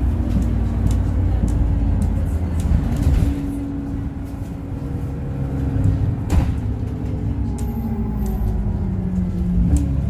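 Interior sound of an Alexander Dennis Enviro400 bus with a Voith automatic gearbox, engine and driveline running under way, with body rattles. There is a sharp thump about six seconds in, and the engine pitch falls through the second half as the bus slows.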